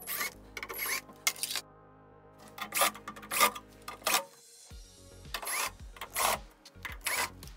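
Cordless drill-driver whirring in several short bursts as it backs screws out of a metal equipment cover, over background music.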